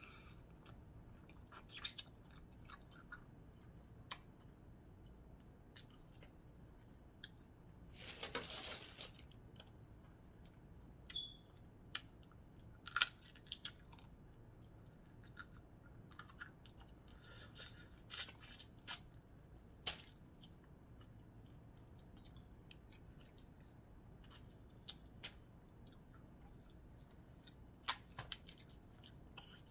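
Faint close-up eating of crab legs: chewing with scattered sharp clicks and cracks as the shell is broken, and one longer crackling stretch about eight seconds in.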